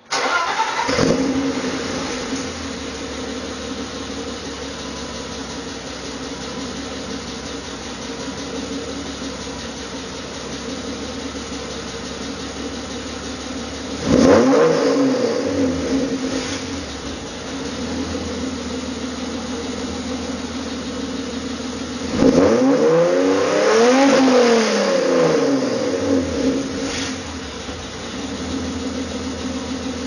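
BMW E30 engine breathing through tubular headers, a test pipe in place of the catalytic converter and a Stebro cat-back exhaust: it starts up and idles, is revved briefly about fourteen seconds in, then revved up and back down again over several seconds near the end before settling to idle.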